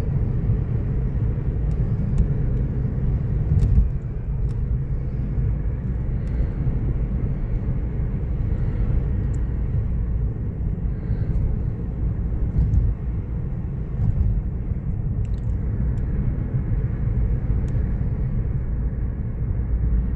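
Steady low rumble of a car being driven: engine and tyre road noise, even throughout.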